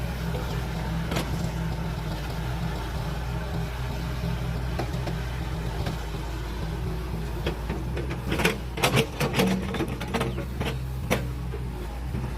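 A heavy machine's engine running steadily, with a run of sharp clanks and knocks about eight seconds in.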